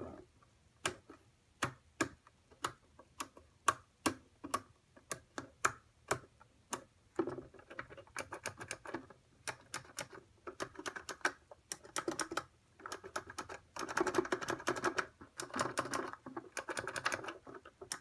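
Switches on a TIE pilot chest box being pressed by hand with no electronics wired: rocker switches click one at a time, then the square acrylic push buttons click in quicker runs.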